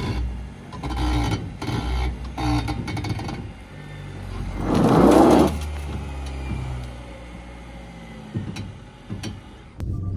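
BYD Shark 6 ute driving over rough off-road ground with a low steady rumble, and a loud burst of scraping noise about halfway through.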